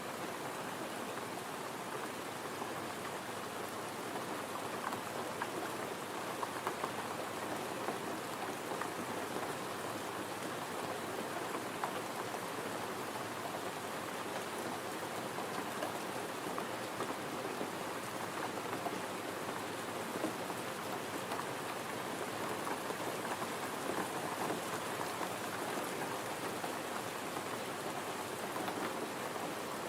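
Steady gentle rain: a dense, even patter of raindrops without a break.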